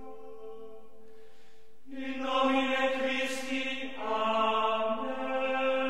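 Background music made of slow, sustained chords held over a low steady note, growing louder with a chord change about two seconds in and changing again about four seconds in.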